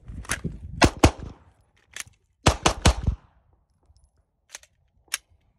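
Pistol shots fired in two quick strings of about three shots each, a little over a second apart, followed by two fainter single sharp cracks near the end.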